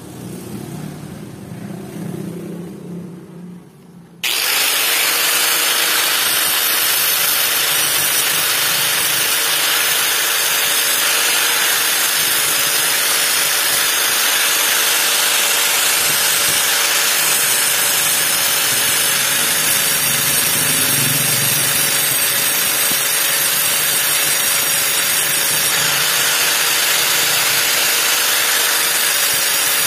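Power tool fitted with an old tile cutting disc, grinding the teeth of a bandsaw blade. It starts abruptly about four seconds in and then runs steadily and loudly: a hissing grind with a constant whine through it. Before it, a quieter, uneven low rumble.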